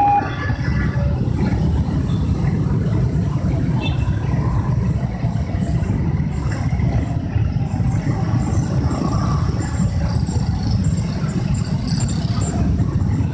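Steady low rumble of motor vehicles running past a railway level crossing, heavy in the bass and without clear tones.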